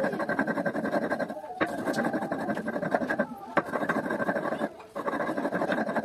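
Stone pestle (nora) rubbed back and forth on a flat stone grinding slab (shil), crushing ripe Indian jujubes (kul) into a mash. A steady gritty scraping, broken by a few short pauses between strokes.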